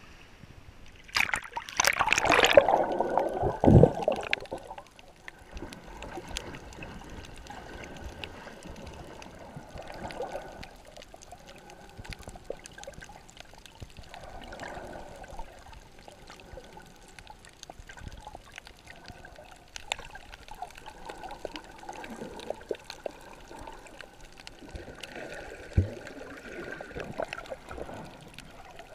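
A loud splash and rush of water as the camera goes under about a second in, then muffled underwater water noise with soft gurgling swells and scattered faint clicks.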